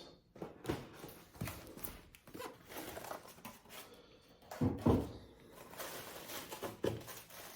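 Cardboard box being opened by hand: flaps and packing rustling, with several sharp knocks and thuds, the loudest near the middle.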